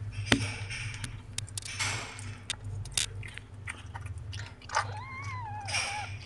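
Mother cat licking and chewing over her newborn kitten, a run of wet smacking clicks and licks, with one short wavering mew about five seconds in.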